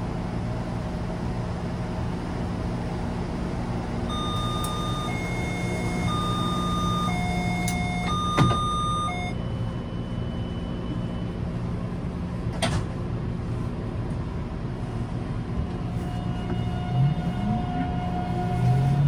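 Taipei Metro C321 train standing at the platform with a steady low hum. About four seconds in, the door-closing chime sounds, a run of alternating high and low beeps, and the doors knock shut about eight seconds in. Near the end the traction motors start a rising whine as the train pulls away.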